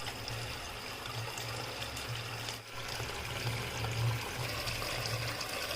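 Water trickling steadily down a small homemade tabletop waterfall fountain, over a low steady hum.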